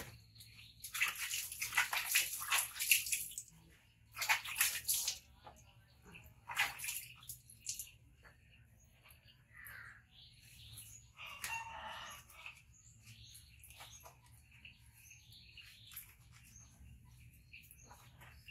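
Splashing and sloshing of water as a monkey is washed by hand over a basin, in several bursts of a second or two each.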